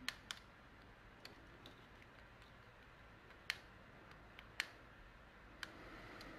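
A handheld 3D pen at work on a 3D-printed plastic piece: a few scattered sharp clicks against a quiet background, the loudest two about three and a half and four and a half seconds in.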